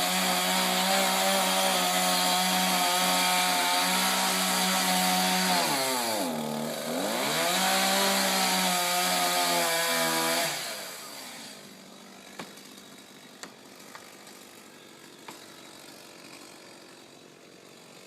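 A two-stroke chainsaw runs at high revs, cutting into a tree. Its pitch sags and recovers about six seconds in, and the saw cuts off about ten seconds in. A few faint sharp cracks follow in the quiet.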